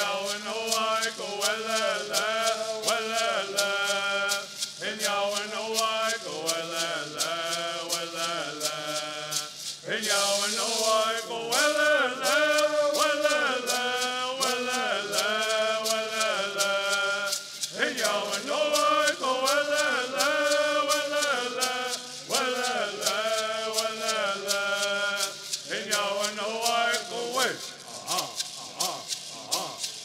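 Southern California Native American bird song: a group of men singing in unison to the steady beat of gourd rattles, phrase after phrase. The singing thins out near the end.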